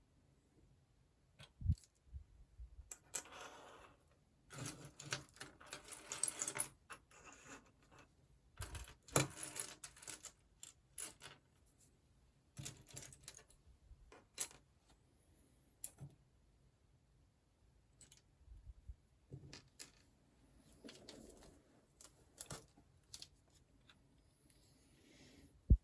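Oxford plastic building blocks clicking and clattering as pieces are handled, sorted and pressed together, with scattered sharp clicks and a few longer spells of rattling among loose parts.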